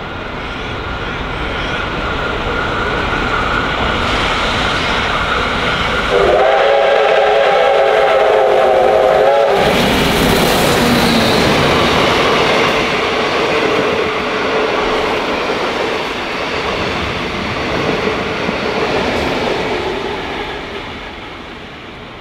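Steam locomotive R707 approaching and passing with its train of carriages. Its whistle sounds for about three seconds, a chord of several tones that starts and stops sharply, as the engine draws near. The clatter of the carriage wheels then swells and fades as the train goes by.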